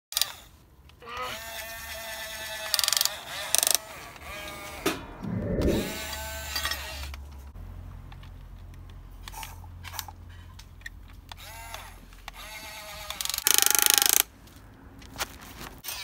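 Huina 580 RC excavator's electric motors whining in short spells as the arm and bucket are driven, the whine rising and falling in pitch as each motion starts and stops. A few short loud bursts of noise cut in, the longest near the end.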